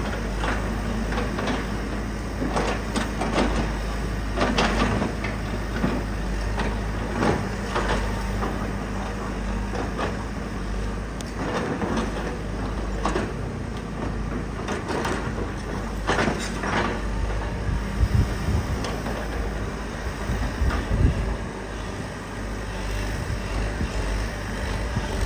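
Excavator engine running steadily, with repeated knocks and clatter of material being moved, and heavier thuds about 18 to 21 seconds in.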